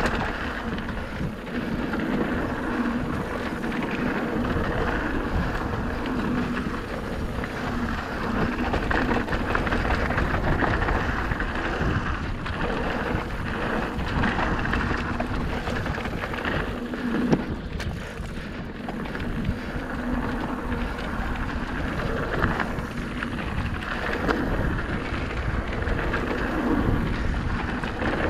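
Merida eOne-Sixty electric mountain bike descending a dirt and gravel singletrack at speed: steady wind rush over the camera microphone and tyres rolling over loose dirt, with frequent small knocks and rattles from the bike and one sharper knock about two-thirds of the way through.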